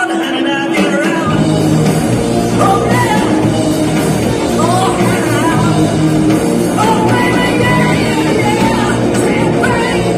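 Live rock band playing: singing over electric guitars, with the bass coming in about a second in.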